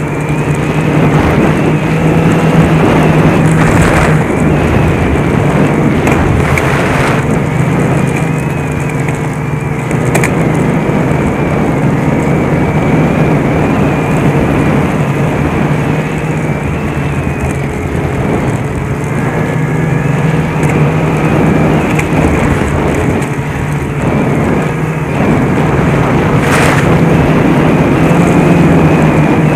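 Snowmobile running along the trail at a steady cruising speed, its engine holding an even pitch, with a few brief knocks.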